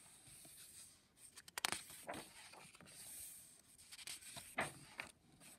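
Pages of a book being turned by hand: faint paper rustling, with a few light clicks of the paper about a second and a half in and again near the end.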